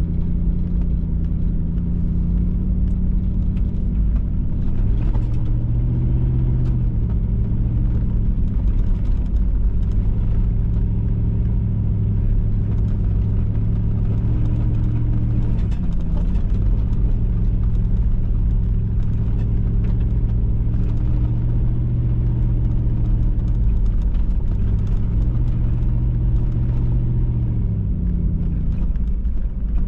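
A vehicle driving, with a steady deep rumble. The engine note steps up and down several times as the throttle changes, and small clicks and rattles come through now and then.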